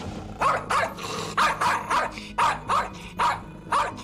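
Spitz barking hard and fast, shut in a pet carrier: about eight sharp barks, roughly two a second. This is aggressive barking at strangers, which the owner says goes on until the dog is hoarse.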